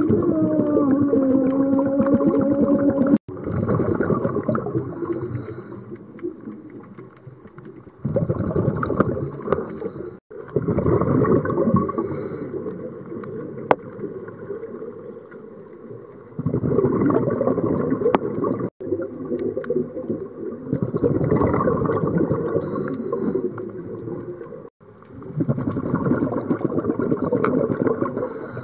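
Scuba diver breathing through a regulator, heard underwater: a short high hiss on each inhale and a gurgling rush of exhaled bubbles lasting a few seconds, repeating every several seconds, with a wavering tone in the first few seconds. The sound cuts off abruptly a few times.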